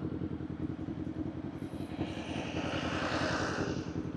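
Kawasaki Z400 parallel-twin engine running at low, steady revs under the rider, its exhaust pulsing evenly. From about two seconds in a broad rushing noise swells and fades away again near the end.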